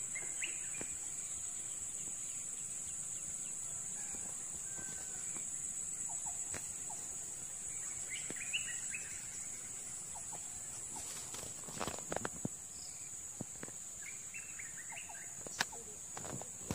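Steady high-pitched drone of insects, with short bird chirps three times. Several light clicks in the second half.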